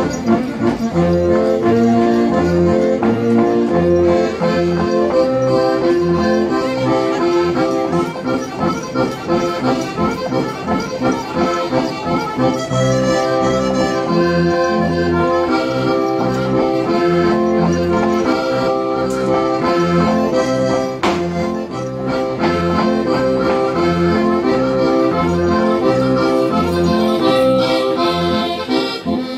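Accordion playing a traditional Sardinian ballu tundu dance tune: a quick repeating melody over alternating bass notes and a held note.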